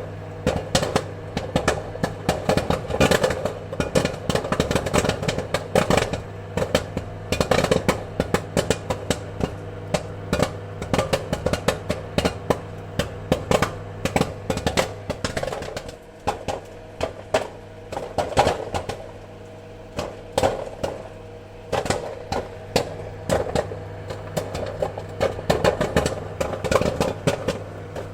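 Popcorn popping: many sharp pops in quick, irregular succession, thinning out briefly a little past the middle and again shortly after, over a steady low hum.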